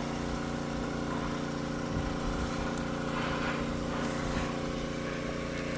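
A steady machine hum at a constant pitch and level, like an engine or motor running.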